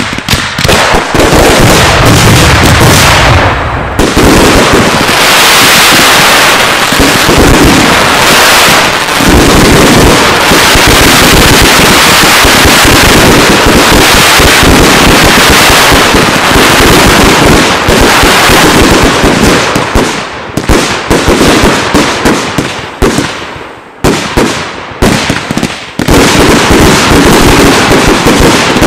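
Daylight fireworks battery firing: a dense, almost unbroken stream of rapid bangs and pops, broken by a few short gaps in the last third.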